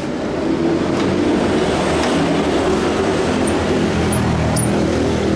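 A motor vehicle engine running steadily. It grows louder over the first half second, then holds.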